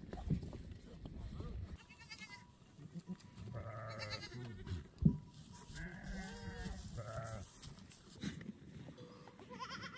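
Goats bleating, several wavering calls one after another, with a single sharp knock about five seconds in.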